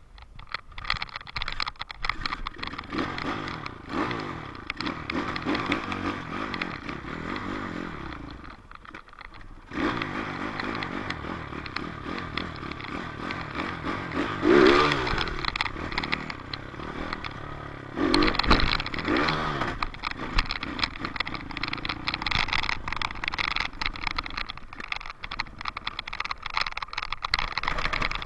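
Dirt bike engine running and revving while riding, its pitch rising and falling. It drops off briefly about a third of the way in, then revs hardest twice near the middle.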